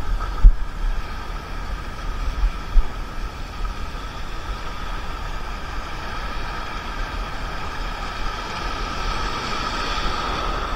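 Sea waves washing over a shallow rocky reef with wind on the microphone: a steady rushing, with a few low thumps in the first three seconds, that swells a little louder near the end.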